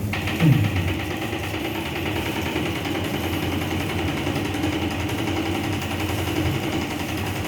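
Electric hair clippers switched on and buzzing steadily. There is a short low sound falling in pitch about half a second in.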